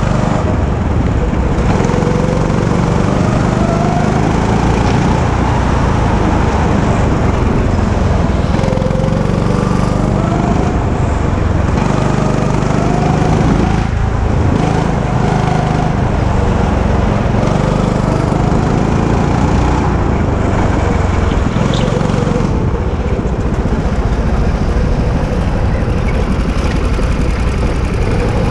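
Go-kart engine running hard, heard from on board the kart. Its pitch rises and falls in repeated sweeps as the kart accelerates out of corners and slows into them.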